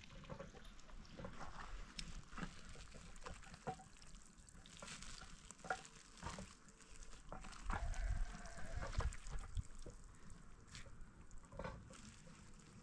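Light crackling and rustling as a wet cloth bag is squeezed and handled over a bowl, with scattered small clicks and a few low thumps about eight seconds in.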